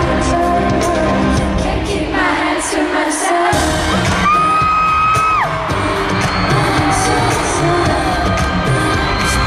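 Live pop song in an arena: a female singer sings over a loud beat, which drops out briefly about two seconds in and comes back as she holds one long high note, with the crowd screaming along.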